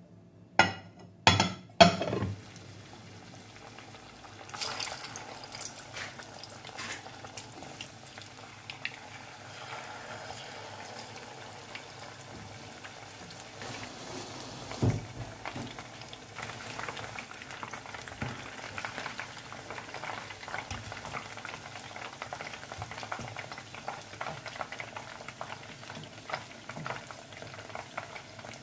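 Three sharp knocks in the first two seconds, then chicken drumsticks deep-frying in a pan of hot oil: a steady bubbling sizzle with scattered crackles.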